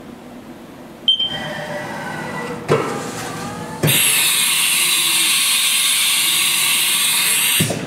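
Haas TM-3 mill's 20-station umbrella tool changer running a tool change: a short beep from the control, a motor whine with gliding pitch as the carousel moves, a knock, then a loud steady rushing noise for about four seconds that stops suddenly near the end.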